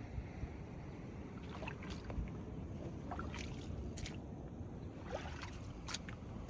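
Seawater sloshing and lapping among tidepool rocks over a low steady rumble, with scattered small sharp watery plinks starting a second or two in.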